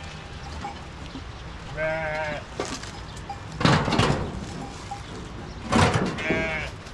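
Sheep bleating: two quavering bleats, about two and six seconds in. Two louder, noisy sounds come in between and just before the second bleat.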